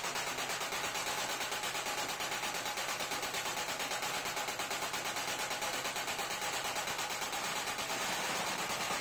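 Motor-driven punching machine punching small holes in a brass plate, a rapid, even clatter of strokes over the machine's running motor.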